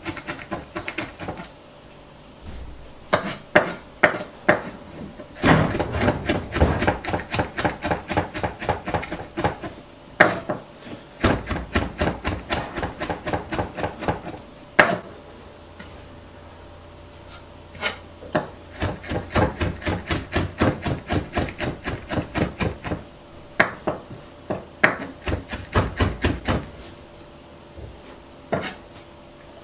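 Chef's knife chopping garlic on a wooden cutting board: runs of quick, sharp taps, about five a second, with a few short pauses between runs.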